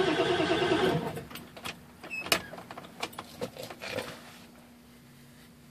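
Starter cranking an OBS Ford's 7.3-litre V8 diesel, which turns over with an even pulsing beat but does not fire: a crank-no-start. The cranking stops about a second in, followed by a few light clicks and knocks and a faint steady hum.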